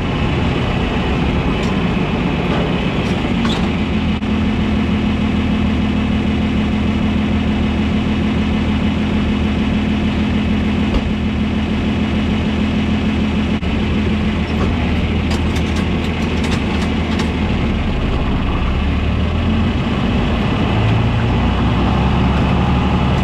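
Farm tractor engine running steadily. Its note changes about halfway through, and a few light clicks come a little later.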